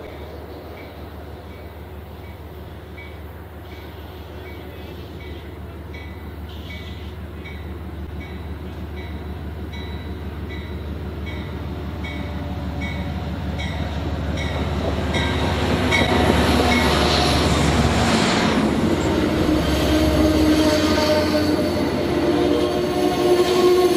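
Amtrak passenger train approaching on diesel power, growing steadily louder until the locomotive passes about two-thirds of the way in. Then the passenger cars roll past close by with loud steady wheel-on-rail noise.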